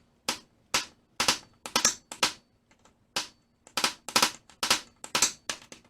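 Hammer striking a punch set on the inner race of a seized sander bearing, about a dozen sharp strikes at an uneven pace of roughly two a second, some in quick pairs, driving the frozen bearing out of its heated housing little by little.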